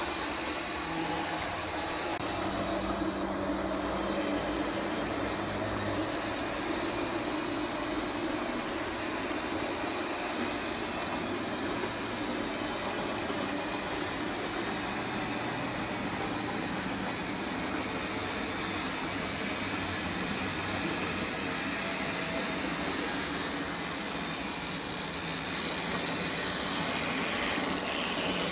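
Model diesel locomotives running on the layout's track: small electric motors whirring steadily, with wheels rolling on the rails.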